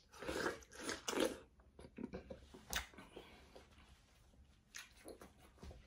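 A person biting into and chewing a juicy slice of yellow watermelon, loudest in the first second or so and then quieter chewing, with one sharp click nearly three seconds in.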